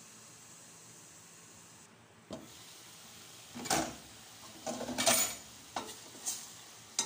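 Chicken pieces frying in oil in a stainless steel pot with a faint sizzle, a single knock a couple of seconds in, then a spatula stirring and scraping against the pot several times in the last few seconds.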